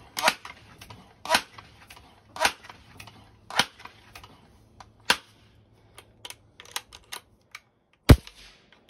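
Benjamin 397S multi-pump air rifle being pumped: a run of pump-lever strokes about a second apart, each ending in a sharp clack. Then lighter clicks, and one loud sharp snap near the end.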